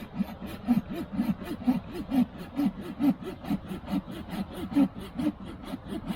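Small folding pull saw cutting through a green branch with its coarse teeth: steady, even rasping strokes at about two a second.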